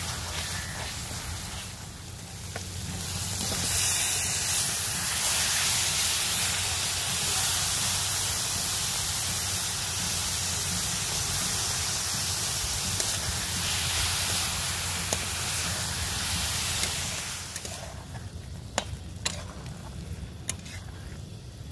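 Button mushrooms and masala sizzling loudly in a hot iron kadai, a steady hiss that sets in a few seconds in and dies down a few seconds before the end. Near the end a steel spatula clicks and scrapes against the pan as the mushrooms are stirred.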